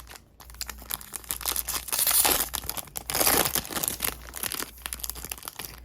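Plastic wrapper of a 2022 Topps Series 1 baseball card pack crinkling and tearing as it is opened, loudest in two bursts near the middle.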